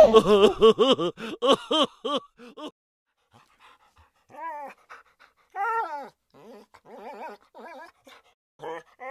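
Laughter fading out over the first two seconds or so, then a dog whimpering in a series of short, rising-and-falling whines and yips.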